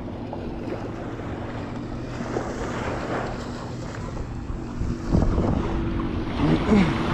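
Water sloshing and wind buffeting the microphone, over a faint steady low hum, with a louder low thump or splash about five seconds in.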